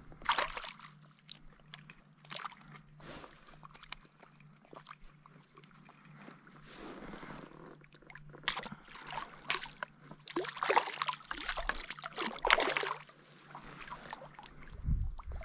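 Lake water splashing and sloshing in irregular bursts, heaviest about ten to thirteen seconds in.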